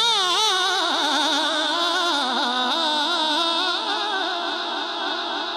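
A man's voice singing a naat into a microphone, drawing out one long melismatic note with heavy, wavering vibrato that settles into a steadier held tone about two seconds in.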